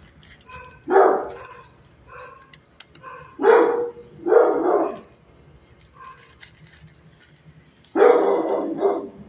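A dog barking: four loud barks, two close together in the middle and a longer one near the end.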